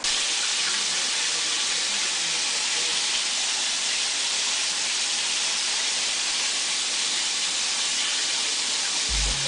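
Chicken strips frying in oil in a cast-iron skillet: a steady, even sizzle. Near the end a low bass line of music comes in.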